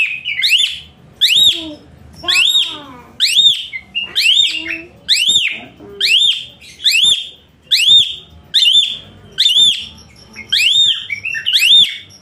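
A bird calling over and over: a long run of loud, clear whistled notes, each rising and then falling, about one or two a second.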